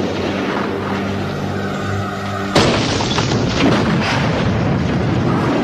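Held music chords, then about two and a half seconds in a sudden boom as a wall of desert sand erupts from the ground, followed by a continuous loud rushing noise of the blast under the music; a film sound effect.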